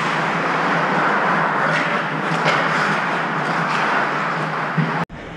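Steady background noise of a hockey rink during play, with a few faint knocks. The sound cuts off suddenly near the end.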